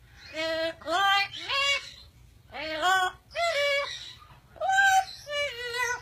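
Parrot vocalising in a series of pitched, song-like notes that slide up and down, about seven in three groups.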